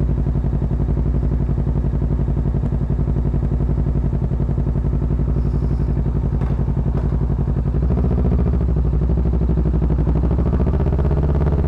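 Kawasaki Ninja 650 parallel-twin engine running while the bike is ridden, a steady engine note that drops and changes about eight seconds in and climbs again near the end.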